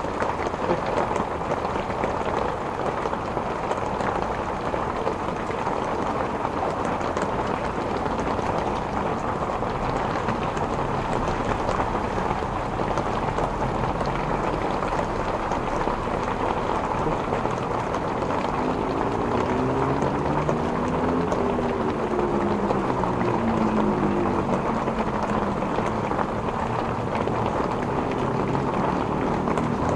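Steady hiss of light drizzle falling on lake water and a wet bank. From about two-thirds of the way through, a passing engine is heard, its pitch rising and then falling.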